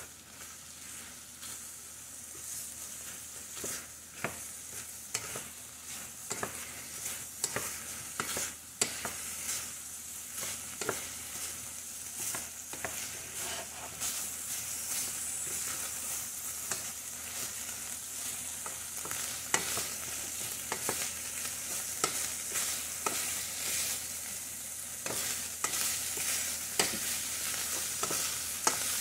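Diced pork for chicharrón sizzling in a stainless-steel pot while being stirred with a wooden spoon, the spoon clicking and scraping against the pot many times. The meat's own water has cooked off and it is beginning to fry in its own rendered fat, and the sizzle grows louder over the first half.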